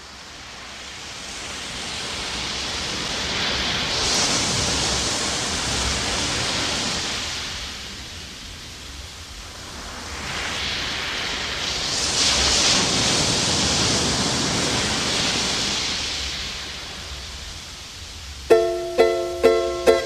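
A hissing wash of noise swells and fades twice, like surf rolling in. About a second and a half before the end, a plucked ukulele starts picking single notes.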